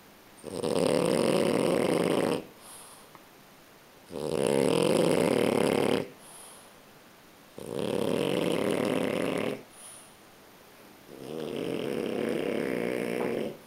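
French bulldog snoring in deep sleep: four long snores of about two seconds each, at an even pace with short quiet gaps between breaths.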